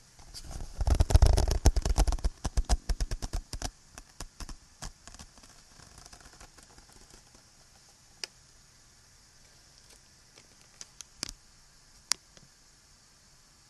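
Small objects tapped and handled right against the microphone: a fast run of clicks and taps with some low thuds in the first few seconds, then a few single clicks later on. A steady recording hiss runs underneath.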